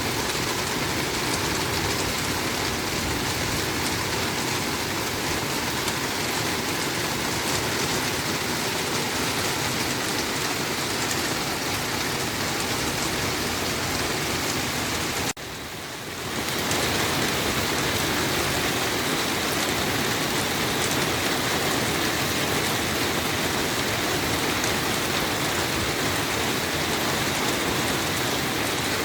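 Steady rain falling with a dense, even hiss. It drops away suddenly about halfway through and comes back within a second or so.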